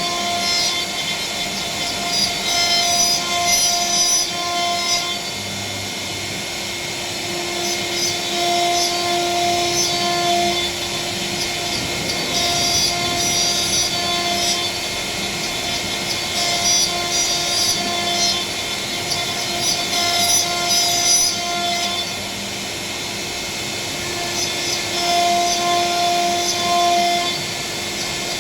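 CNC router cutting a panel: the spindle's steady whine runs under a cutting noise that grows louder and softer in stretches as the bit moves through the material.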